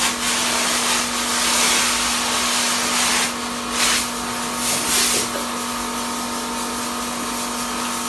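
Small electric motor-driven pump or cleaner running steadily with a hum, under a loud hiss of spray or air from the hose at an air-conditioner indoor unit being serviced; the hiss swells briefly a couple of times in the middle.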